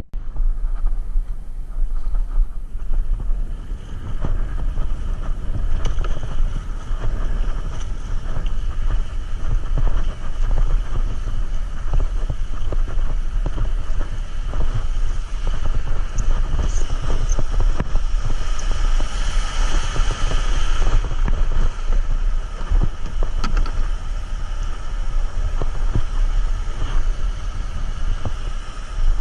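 Wind buffeting the camera microphone on open water: a steady low rumble with a hiss above it and scattered small knocks.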